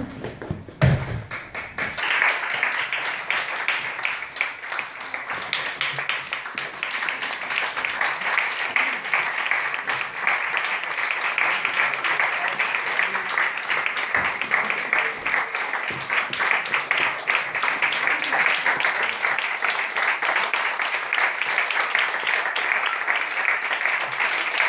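Audience applauding, the clapping starting about two seconds in and carrying on steadily.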